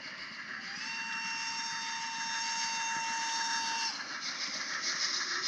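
A model steam locomotive's whistle gives one long steady note lasting about three seconds, sliding up slightly as it starts, over the rolling noise of the model train running on the track. The running noise gets louder and brighter near the end as the train passes close.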